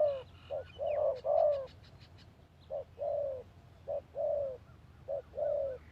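Spotted dove cooing: repeated phrases of a short coo followed by a longer falling coo, about four phrases, with gaps between them. Faint chirps of small birds sound above, and a quick run of light ticks comes about a second in.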